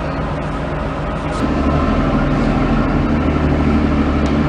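Ship's machinery running with a steady low drone, which grows louder with a steady hum about a second and a half in.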